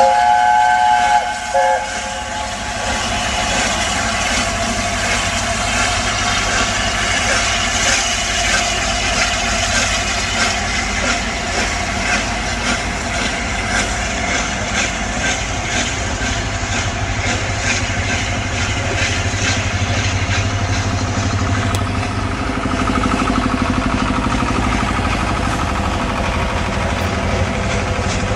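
A train sounds a blast of about two seconds, then rolls past with a steady rumble and a regular run of clicks from its wheels over the rail joints.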